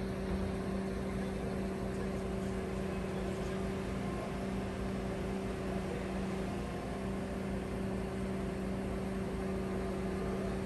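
Mobile crane's diesel engine running steadily, a constant low hum with no change in speed.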